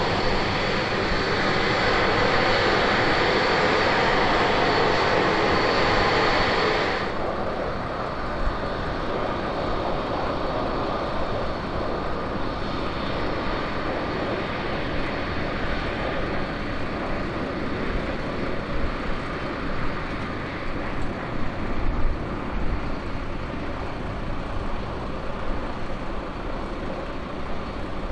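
Avro RJ85's four Honeywell LF507 turbofan engines running at taxi power, a steady jet noise with a faint high whine. It is loud for the first seven seconds, then drops suddenly to a quieter, steady level.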